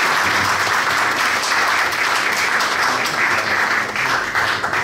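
Audience applauding in a room, a dense clatter of many hands clapping that thins out near the end.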